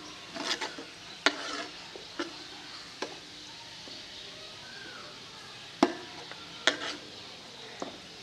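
A long metal ladle stirring and scraping in an aluminium pot, with several sharp irregular knocks of metal on metal, over a steady sizzle of sliced onions frying in oil until nearly golden.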